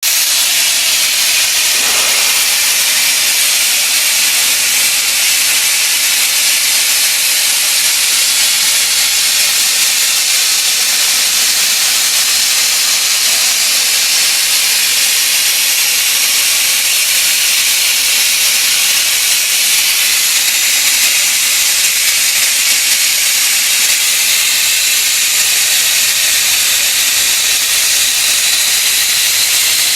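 Steam from a biomass pellet steam boiler hissing out in a steady, loud, unbroken rush.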